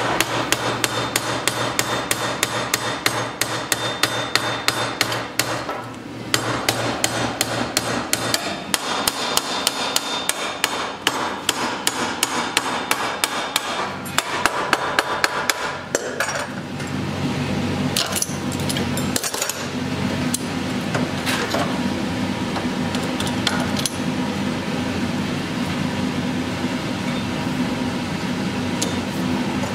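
Hammer blows on a hot iron bar being bent around a round jig clamped in a vise, several blows a second in runs, with brief breaks about 6 and 16 seconds in. A steady low hum runs beneath and grows stronger about two-thirds of the way through.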